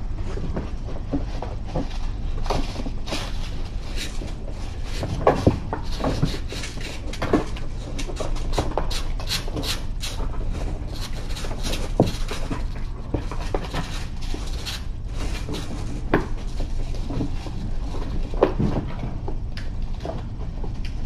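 Kittens scrambling over a cardboard box: scattered scratches, taps and knocks of paws and claws on cardboard, over a steady low hum.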